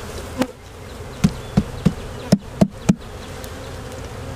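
Honeybees buzzing steadily around an open hive, with a quick run of about seven sharp knocks in the middle, falling within about two and a half seconds.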